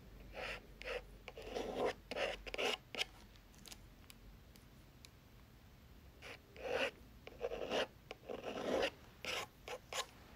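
Edge of a store card dragged across watercolour paper, scraping paint on in short strokes: a quick run of strokes at the start, a pause of about three seconds, then another run from about six seconds in.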